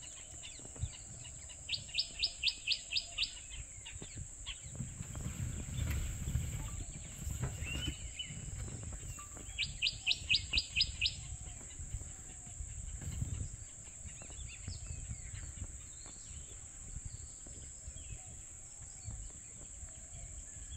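A bird calling twice, each call a quick run of about eight sharp, evenly spaced notes lasting about a second and a half, the second run some eight seconds after the first. A steady high insect drone runs underneath.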